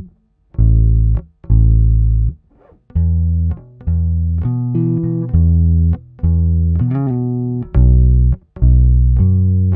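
Fender Vintera '50s Precision Bass played with the thumb, on its own: a line of separate deep notes, each held for about half a second to a second with short gaps between them. A slide in pitch comes about seven seconds in.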